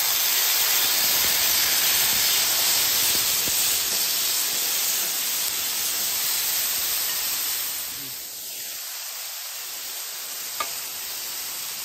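Wet, marinated pork cubes sizzling in a steady hiss on a flat-top griddle heated to about 475–500°F as they are dropped on from a wire strainer spoon. The sizzle eases a little about eight seconds in.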